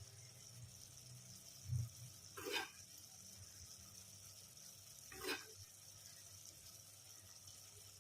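Faint steady sizzle from the biryani pot on the heat, with a dull thump and two short scraping knocks of a spoon as cooked rice is spooned in over the chicken gravy layer.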